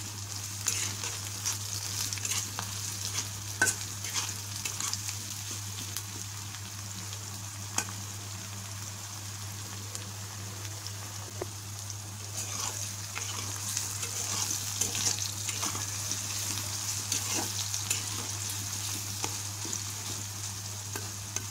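Sliced onions sizzling in hot oil in a coated kadai, stirred with a metal spatula that gives scattered scrapes and taps against the pan. A faint steady low hum lies underneath.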